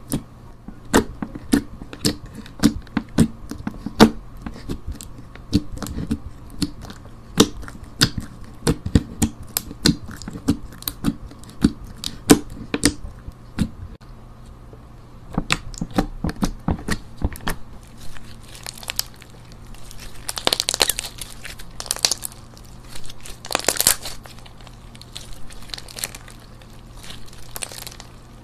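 Sticky clear slime packed with jelly balls being pressed, squeezed and stretched by hand. For most of the stretch it gives quick sticky clicks and pops as the fingers press in and pull away. In the last third these give way to a few longer crackling stretches as the slime is pulled apart.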